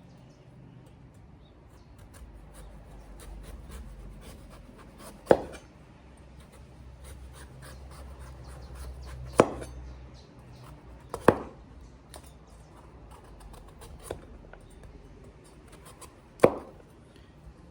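A hand-forged knife chopping through breadfruit, with four loud sharp knocks as the blade comes down and fainter scraping and clicking between them.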